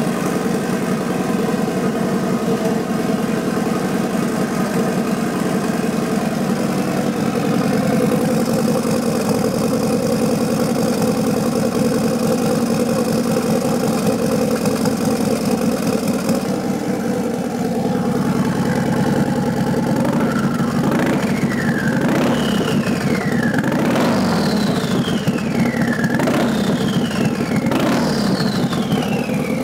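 Harley-Davidson Milwaukee-Eight V-twin fitted with a Trask Tornado turbo kit, idling steadily on its first fire-up. From about 18 seconds in it is blipped five times, and after each blip the turbo's whistle slides down in pitch as it spools down.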